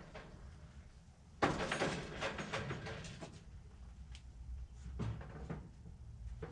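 Oven door being opened and a wire oven rack clattering as it is handled: a sudden loud metallic clatter about a second and a half in that goes on for about two seconds, then a couple of knocks about five seconds in.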